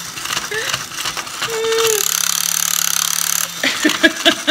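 An animatronic toy horse's small motor and plastic gears running as it walks, with a rapid clicking, rattling clatter from the mechanism and legs.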